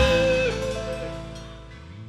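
Dangdut koplo band music fading out, its held notes dying away while the level steadily drops.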